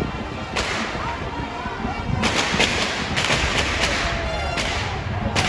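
About half a dozen sharp bangs, most of them bunched in the middle, over the steady noise of a crowd in the street.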